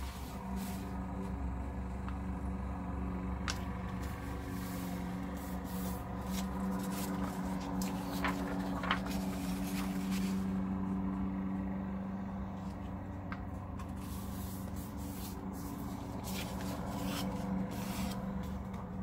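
Sheets of paper being folded in half lengthwise and creased by hand, with rubbing, sliding and brief crinkles, over a steady low hum.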